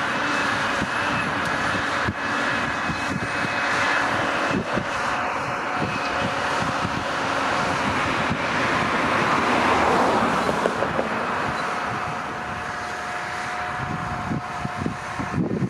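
Cat Challenger MT775E tracked tractor running steadily under load while pulling an eight-furrow plough. It grows louder to a peak about ten seconds in, then fades a little.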